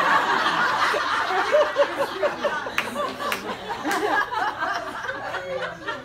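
A small audience laughing together, loudest at the start and gradually dying down, with a few sharp clicks partway through.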